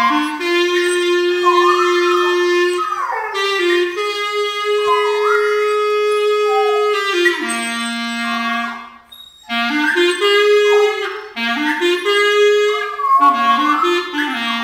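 A clarinet playing held notes, with a golden retriever singing along in high, wavering cries that slide up and down above the melody. The playing breaks off briefly twice between phrases.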